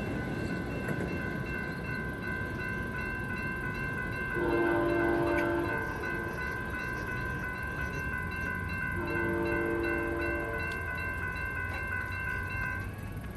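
Grade-crossing bells ringing steadily while a train's air horn sounds two blasts of about a second and a half each, about four and nine seconds in. The bells stop near the end.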